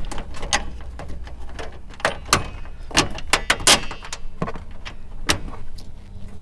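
A bolt and large metal washer being handled and fitted by hand through a Molle panel: irregular sharp metallic clicks and knocks.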